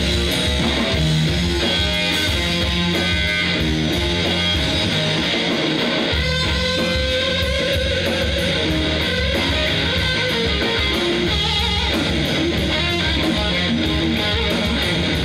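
A blues trio playing live: electric guitar over electric bass and a drum kit, at a steady loud level. About seven seconds in, the guitar holds a long bent note.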